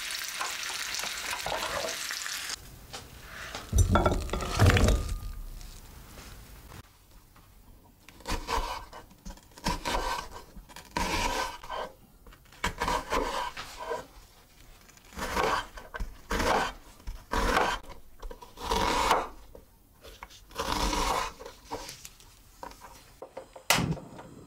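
Potato slices sizzling in oil in a frying pan, then a couple of heavy thumps. Then a chef's knife slicing through an onion on a wooden cutting board, about a dozen crisp strokes at roughly one a second. A sharp click comes near the end.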